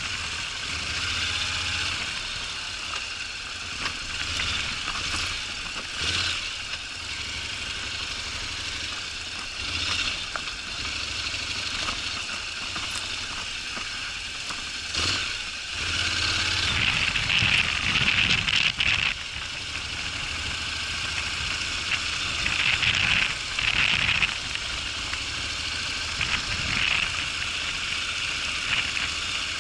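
Honda NC750X motorcycle's parallel-twin engine running steadily at low revs under a constant hiss of riding noise, with louder, harsher stretches about halfway through and again a little later.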